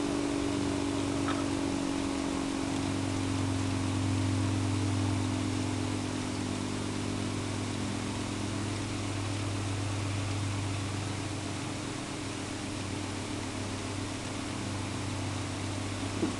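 Federal Signal 3T22 three-tone outdoor warning siren winding down: its chord slowly drops in pitch and fades, over a steady low hum.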